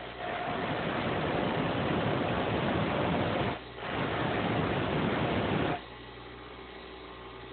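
Steel lock pick blank being ground on a running electric grinder: a loud grinding hiss in two passes, about three and two seconds long with a short break between. Near the end only the grinder's motor is heard running.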